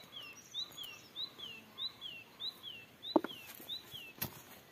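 A bird repeating a high two-note phrase about every 0.6 s, a short up-and-down note followed by a falling one, seven times over. A sharp knock about three seconds in, the loudest sound, and a fainter one near the end.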